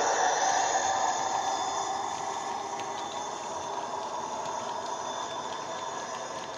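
Heljan Class 58 model diesel locomotive's DCC sound decoder, loaded with the Howes Class 58 sound file, playing the diesel engine through a 25x25x7 mm bass reflex speaker. It grows steadily fainter as the locomotive pulls away, with the wagons rolling along the track.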